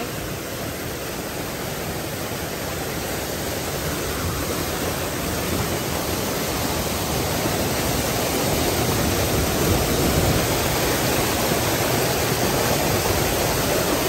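A small waterfall cascading over rocks and sandbags into a river pool: a steady rush of falling water that grows gradually louder as it is approached, ending right up close in the splash.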